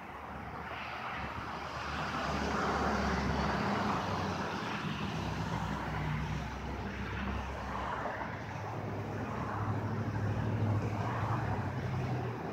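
Engine noise swelling over the first couple of seconds and then holding, with a low hum that drifts up and down in pitch.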